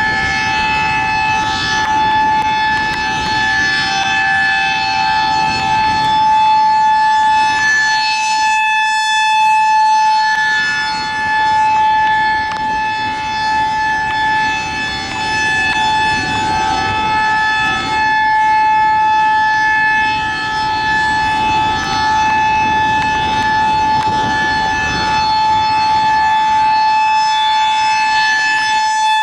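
Federal Signal 2001-SRNB electromechanical rotating warning siren sounding a steady, high-pitched alert tone for a tornado warning. The tone holds one pitch throughout and swells and fades in loudness as the horn turns.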